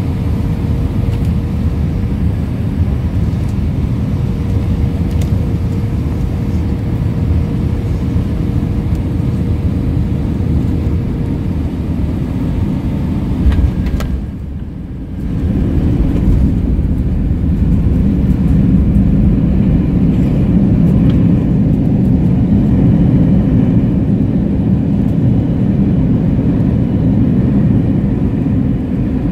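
Airbus A319 landing, heard inside the cabin over the wing. A steady engine hum with a faint high tone on final approach, then a single thump about 13 seconds in as the wheels touch the runway. After that a louder, deeper rumble runs through the landing roll.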